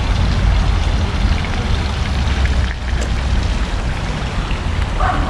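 Water running steadily in a small stream.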